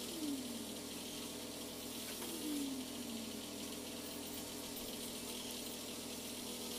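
Compressed-air paint spray gun hissing steadily as it sprays paint, over a steady low hum. A low tone slides downward twice, once at the start and again about two and a half seconds in.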